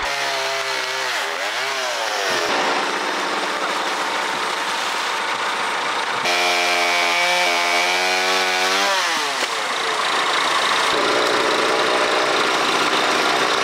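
Chainsaw and tractor engine running while oak branches are cut. The engine pitch dips and then rises again twice, and the sound changes abruptly at cuts between shots.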